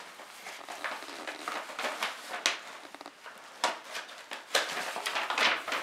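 Tissue paper rustling and crinkling as hands unfold it inside a cardboard box, in quick, uneven crackles.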